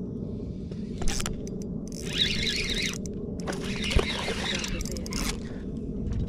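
A bass hooked on a spinning rod fights: the reel's drag rasps in two spells of a second or more, and the fish splashes at the surface about four seconds in.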